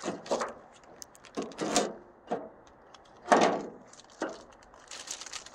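Replacement tailgate support cables being handled, giving a series of short, irregular scrapes and rattles, the loudest about three seconds in.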